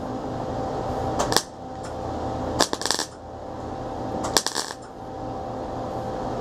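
MIG welder arc crackling in short bursts, three times about a second and a half apart, as thin-gauge sheet-steel patch is stitch-welded to fill a burn-through hole. A steady hum runs underneath.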